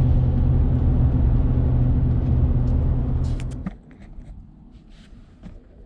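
Pickup truck cruising, the steady drone of its 8.1-litre big-block V8 and road noise heard from inside the cab. It cuts off suddenly near the end, leaving only a few faint light clicks.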